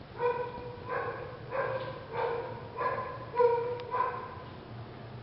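A dog barking repeatedly: about seven short, pitched barks in quick, even succession.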